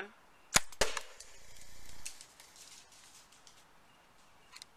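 Homemade PVC airsoft trip mine firing: its elastic-driven firing pin sets off a loaded airsoft grenade shell with two sharp snaps in quick succession, followed by a rush of noise that swells for about a second and then faint scattered ticks as the burst of BBs flies off into the distance.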